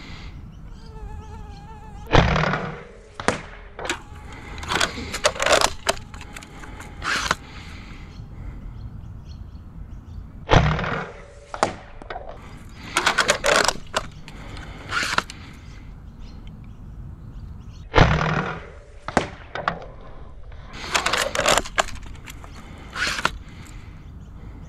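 Sabre M20S spring-powered foam dart blaster with a 26 kg spring being fired three times, each shot a loud sharp thump. Between the shots come bursts of mechanical clicks and clacks as the blaster is re-cocked.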